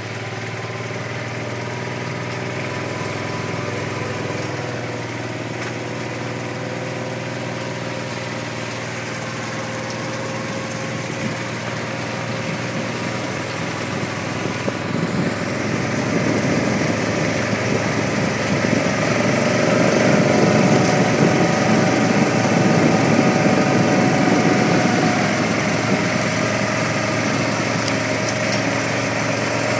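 Motor vehicle's engine running steadily, heard from inside the vehicle as it drives, growing louder and rougher for several seconds about halfway through.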